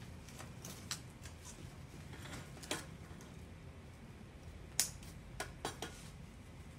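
Straps of an Achilles splint being pulled and fastened around a foot and leg: soft rustling with scattered sharp clicks, the loudest a little under five seconds in, followed by a quick cluster of three.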